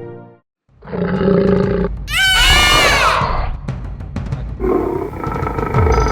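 A cartoon dragon's roar, followed by a high, shrill screech that falls in pitch. Background music stops just before and picks up again near the end.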